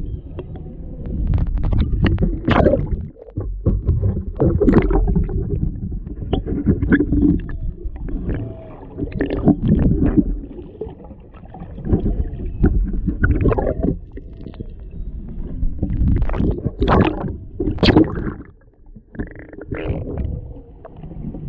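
Underwater sound picked up by a GoPro's built-in microphone: loud low rumbling and gurgling in irregular surges, with a brief lull near the end.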